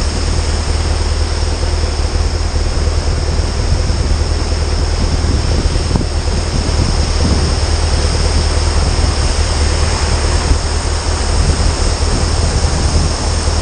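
Onboard sound of a motorcycle ride: steady wind rushing over the microphone with a constant low engine drone underneath.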